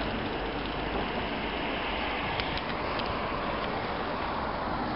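Steady street background noise with a low rumble of traffic, heard through a camcorder microphone, and a few faint clicks a little after halfway.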